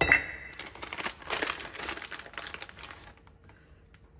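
Plastic bag of chopped garlic crinkling as it is handled and tipped out over a bowl: a dense crackle that starts sharply and lasts about three seconds.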